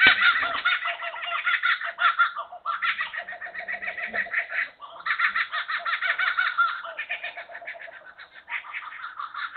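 Laughing kookaburra giving its territorial laughing call: a long run of rapid repeated notes. There are short breaks about two and a half and five seconds in, and the call fades toward the end.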